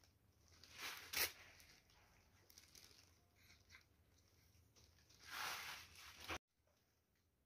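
Faint rustling of leaves and flowers being handled while white roses are set into a wreath. It comes in two short bursts, one about a second in and a longer one about five seconds in, and the sound cuts off abruptly near the end.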